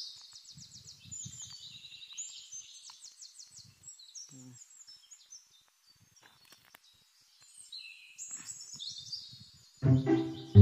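Songbirds singing in rapid, high-pitched chirping trills, in phrases with a pause midway, over faint rustling as dry tamarind pods are gathered by hand. Background music comes in near the end.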